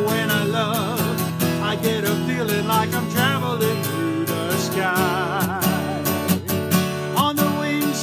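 A man singing with a wavering vibrato over a strummed acoustic guitar.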